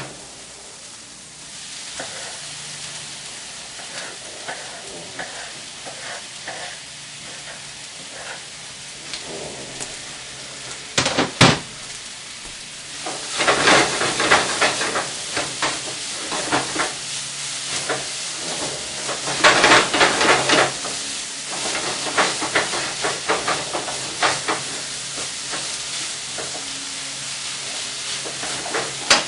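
Food frying in a skillet: a steady sizzle that turns into loud crackling sizzles about 13 seconds in and again around 20 seconds, while the food is stirred in the pan. A couple of sharp knocks come just before the louder sizzling.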